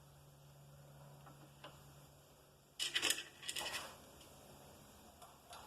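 Metal tools being handled at a milling machine: a brief rattling metal clatter about three seconds in. Under it runs a faint low hum that stops near the end.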